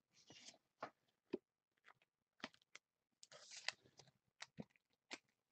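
Near silence with faint handling of trading cards and their packaging: scattered soft clicks and taps, and two brief crinkly rustles, one about half a second in and a longer one about three and a half seconds in.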